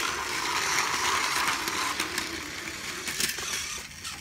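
Battery-powered Plarail toy train running on plastic track, its small motor and gears giving a steady whirr that fades near the end, with a sharp click about three seconds in.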